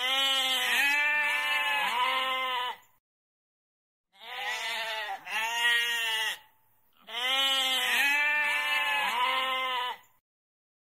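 Goat bleating in three runs of two or three calls each, separated by short silences; each bleat rises and then falls in pitch.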